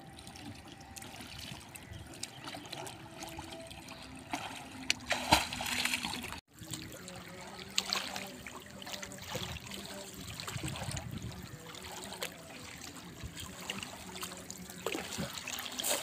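Water lapping and trickling around a small outrigger canoe on calm water, with a few small splashes. The sound drops out for a moment a little before halfway.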